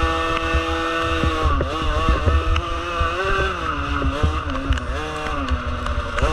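A small engine at high revs, steady for the first second and a half and then revving up and down again and again, with wind rumbling on the microphone.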